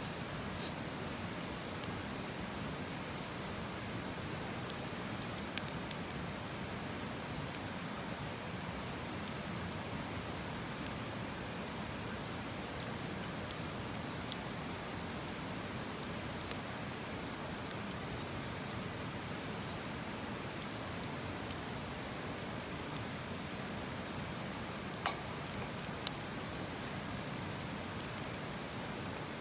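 Wood campfire burning, a steady hiss broken by a few sharp crackles and pops, the loudest about twenty-five seconds in.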